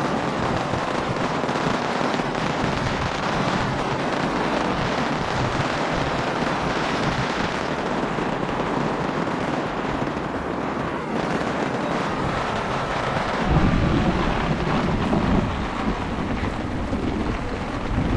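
Heavy rainstorm with strong wind: a dense, steady hiss of rain. About thirteen seconds in, a louder low rumble of wind buffeting the microphone sets in.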